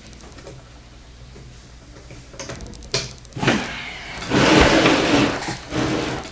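Handling noise from SATA power cables being routed inside a PC case: a few sharp clicks about two and a half seconds in, then a rustling scrape for about a second and a half near the end, the loudest part.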